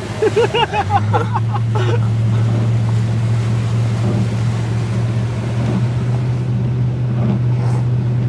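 Pickup truck engine running with a steady low drone from about a second in, over a wash of rain and water noise. A voice calls out briefly in the first two seconds.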